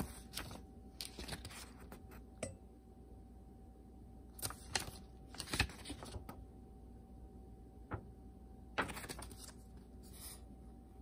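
Pages of a small paper instruction booklet being flipped and handled: a string of brief papery rustles and flicks at uneven intervals.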